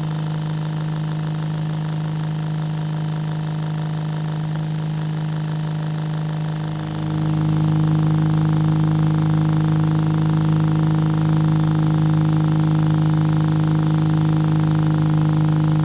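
Small electric motor of a homemade matchbox toy car running with a steady hum, growing louder about seven seconds in.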